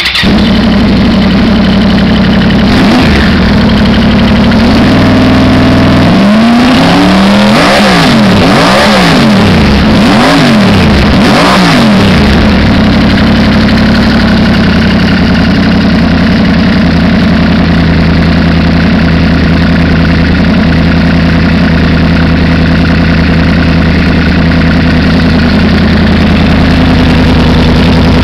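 Yamaha R1 sport bike's inline-four engine breathing through a Graves titanium full exhaust with a short muffler: it starts and runs loud, is given a series of quick throttle blips a few seconds in, then settles back to steady running.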